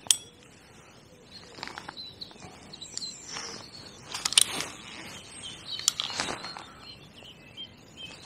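Faint birdsong with a few sharp clicks and short rustles close by, several of them louder than the birds.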